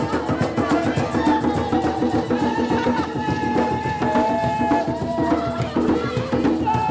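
Music with a steady drum and percussion beat under a held melody line.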